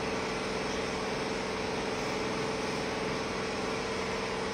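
Steady background hum with constant hiss, one low tone held throughout and no change in level.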